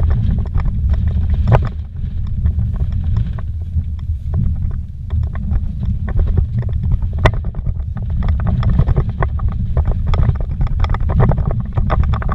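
Vehicle driven fast over a rough, rocky dirt road, heard from inside the cab: a constant low rumble from the road, with frequent sharp knocks and rattles from the bumps and loose stones.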